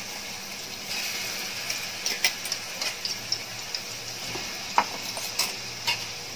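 Ginger-garlic paste freshly added to hot oil in an aluminium pressure cooker, frying with a steady sizzle and scattered pops and crackles. A spoon stirs through it.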